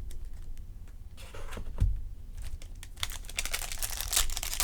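Trading cards being handled with light clicks. About three seconds in, a card pack's wrapper starts crinkling loudly as it is torn open.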